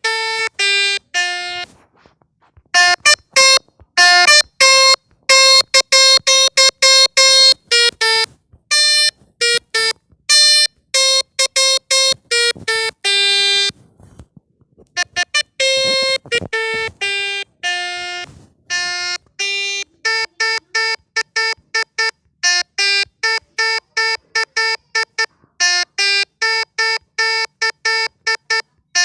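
Telolet-style electronic bus horn playing a tune in short, buzzy, separate notes. There is a pause about 14 s in, then a long run of quick repeated notes.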